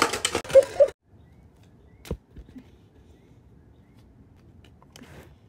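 A plastic toy car tumbling over on concrete paving: a loud rattling clatter in the first second that cuts off abruptly, then a single sharp click about two seconds in.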